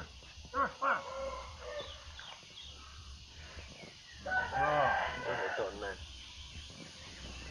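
A rooster crowing, loudest about four seconds in, with a few shorter calls in the first second.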